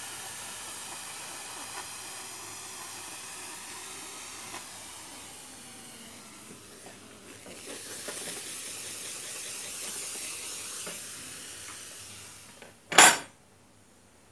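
Silver Star steam iron hissing as it puts out steam, easing off about six seconds in and then hissing again, now that the clogged dust has been cleaned from it. Near the end there is a single loud hard clack, like metal knocked on a hard surface.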